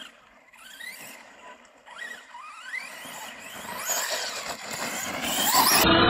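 Arrma Kraton 4S RC monster truck's brushless electric motor whining, rising in pitch with each burst of throttle. It is faint at first and grows much louder as the truck drives up close, with tyre noise on the dirt near the end.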